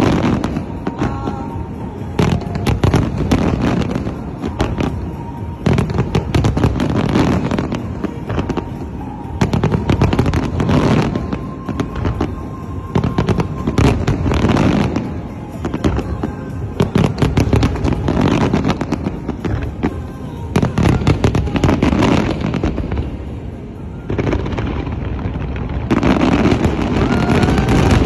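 A large fireworks display bursting continuously, with dense rapid bangs and crackles that swell and ease every couple of seconds, and music playing along with it.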